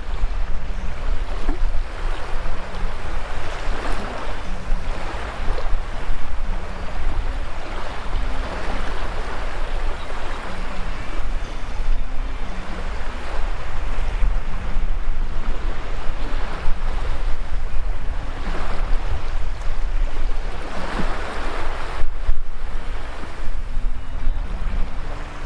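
Small waves washing up and drawing back over the sand at the water's edge, swelling and easing every few seconds, with wind rumbling on the microphone.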